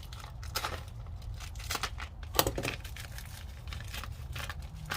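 Packaging being handled: plastic crinkling with irregular clicks and rattles, and a sharper knock about two and a half seconds in, over a steady low hum.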